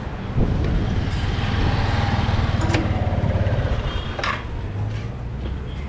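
A motor vehicle engine running with road noise, a steady low rumble that swells early on and eases off in the second half.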